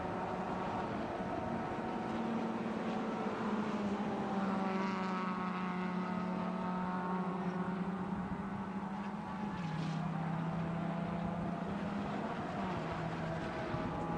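Suzuki Swift race cars' engines running hard on track, a steady, sustained engine note that steps down in pitch twice, partway through and again near the end, as the cars change speed or gear.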